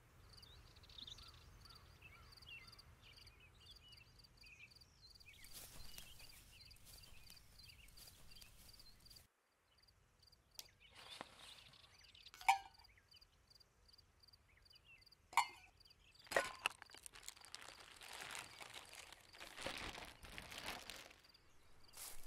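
Faint woodland ambience with small birds chirping, then rustling of tent fabric with a few sharp clicks as a dome tent is put up.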